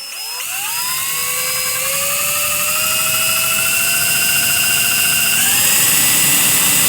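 Small power drill running, its whine rising in pitch as it spins up, then holding steady and stepping up in pitch about five and a half seconds in, as a 4 mm bit cuts through the wall of a carbon fishing pole section.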